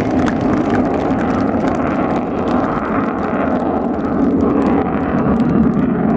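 Avro Vulcan XH558's four Rolls-Royce Olympus turbojets heard as steady, loud jet noise while the bomber makes a display pass.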